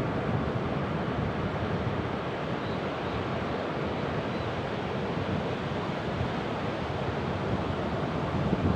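Ocean waves washing onto the shore in a steady rush, with wind buffeting the microphone. The surge grows a little louder near the end.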